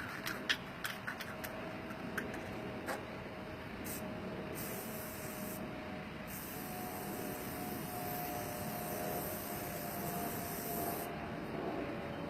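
Aerosol spray-paint can hissing in spurts as paint goes onto a garage door: a short burst, then a longer one, then one of about five seconds, with a few sharp clicks before the spraying begins.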